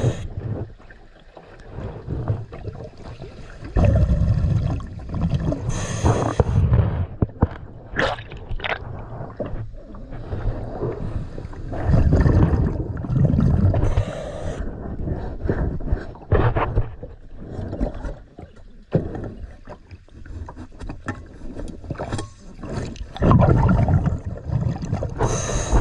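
Diver breathing through a scuba regulator underwater: a bubbling rush of exhaled air every several seconds, each with a short hiss of inhalation. Scratchy scraping sounds come in between, from hull-cleaning work on the boat.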